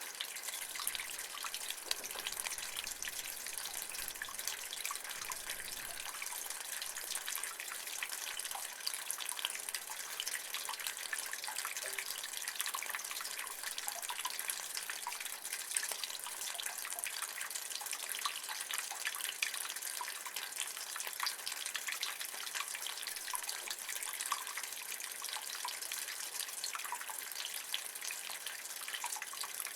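Rainwater running and dripping from a rain gutter: a steady splashing with many small drips.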